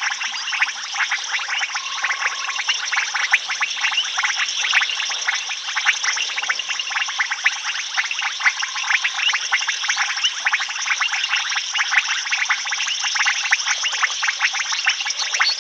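Dense chorus of frogs and insects calling: rapid, overlapping clicks and short trills with no break.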